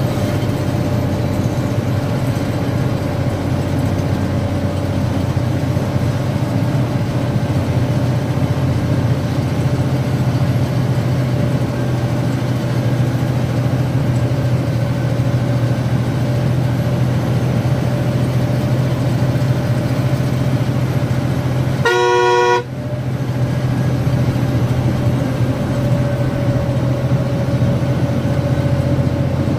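Steady drone of a loaded goods truck's engine heard from the cab while driving, with one short horn blast about three-quarters of the way in.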